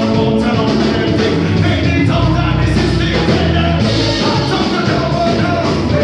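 Live band music with guitar and drums behind a singer, loud and steady.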